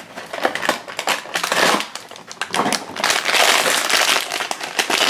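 Silver foil blind-bag wrapper crinkling as it is handled and pulled open, with cardboard box packaging rustling. The crinkling becomes louder and continuous about three seconds in.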